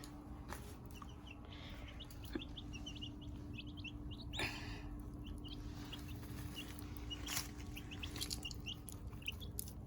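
Young chickens peeping: many short, high chirps, scattered and overlapping. A steady low hum sits underneath, and a brief rustle comes about halfway through.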